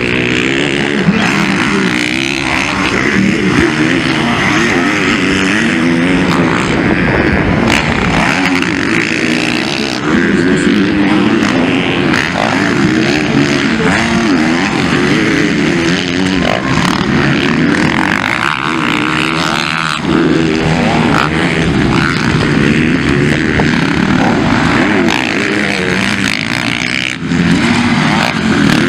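Several motocross dirt bikes racing on a dirt track, their engines revving up and down as the riders work the throttle through jumps and corners.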